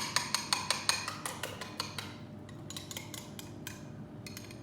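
Fork or whisk beating eggs in a bowl, metal clicking against the bowl several times a second, easing off about two seconds in to a few scattered taps.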